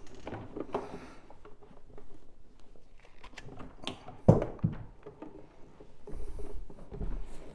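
Cleaning equipment being handled after the machine has stopped: scattered clicks and knocks, with one heavy thump about four seconds in and a lighter one just after.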